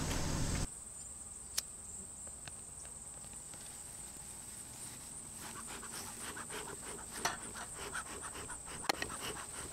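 Insects trilling steadily in the grass in one high, even tone, with light rustling, crackling and a few sharp clicks as dry pine needles are lit and packed into a bee smoker. A low rumble stops abruptly under a second in.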